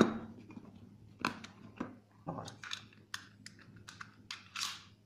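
Handling noise of a .32 semi-automatic pistol and its magazine being lifted out of a fitted, velvet-lined case: a scatter of light metallic clicks and taps mixed with short rustles.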